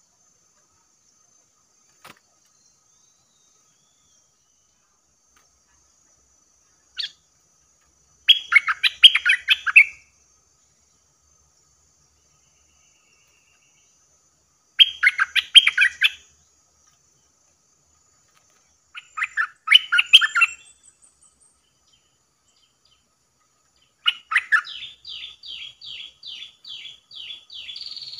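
Caged decoy bulbul calling: four bursts of quick chattering notes with silent gaps between them, the last running into a fast series of short repeated notes near the end. Its calls lure wild bulbuls to the trap. A faint steady high whine sits underneath.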